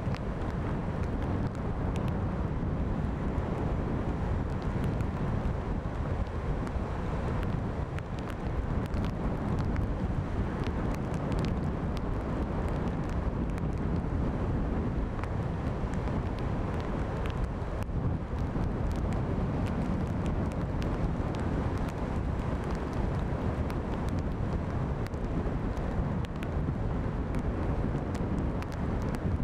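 Storm wind buffeting the microphone as a steady low rumble with constant small crackles, over heavy surf breaking.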